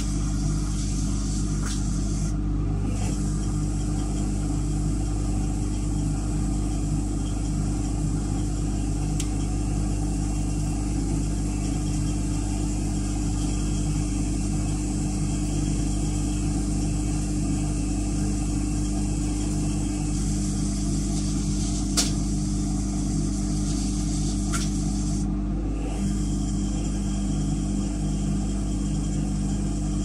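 Arctic L800TA front-loading washing machine running mid-wash with water and suds in the drum: a steady motor hum with a wash of noise, broken by a couple of sharp clicks a little past two-thirds of the way in.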